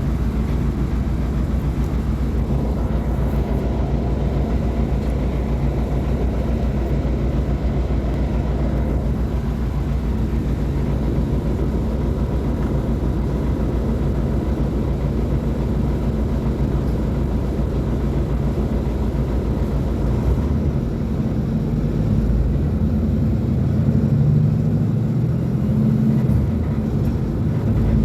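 Mercedes-Benz O500U city bus's Bluetec 5 diesel engine running at a steady idle, then about 20 seconds in its note shifts and rises for several seconds as the engine speeds up.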